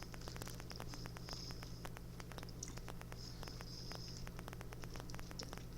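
Faint chewing and wet mouth clicks from someone eating a fish sandwich close to the microphone, many small crackles over a steady low hum.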